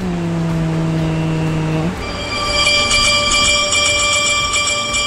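A held low note for about two seconds, then a shimmering, chiming sparkle sound effect of jingle-bell-like tones that rings on steadily: an added 'magic' effect.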